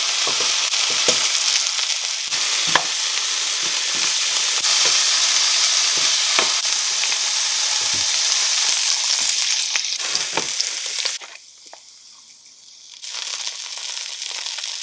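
Breaded schnitzels and mixed vegetables sizzling loudly in hot oil in frying pans, with a few light knocks of a spatula against the pan as the schnitzels are turned. About eleven seconds in the sizzle drops away for a couple of seconds, then returns more quietly.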